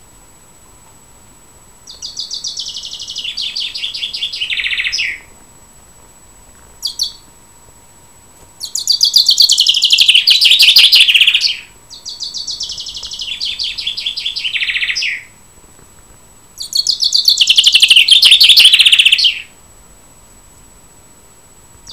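Common chaffinch singing: four loud songs a few seconds apart, each a rapid trill that falls in pitch toward its end, with a short call between the first two.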